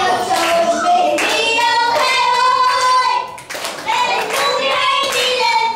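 Young children singing a song into microphones, held notes carried over a loudspeaker, with people clapping along in a steady beat about twice a second.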